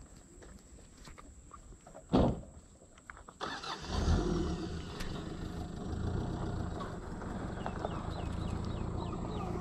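A single sharp thump about two seconds in, then a vehicle engine cranks and starts about three and a half seconds in and settles into a steady idle.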